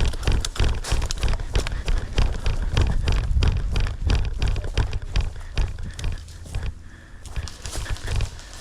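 Running footsteps heard from a helmet-mounted camera: a fast train of heavy footfall thumps with rattling gear clicks, easing off briefly a little past the middle.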